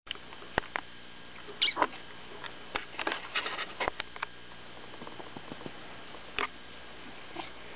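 Tabby cat shifting on a cushion: a scatter of short clicks and brief squeaky sounds, bunched about a second and a half to four seconds in and again near the end, over steady hiss.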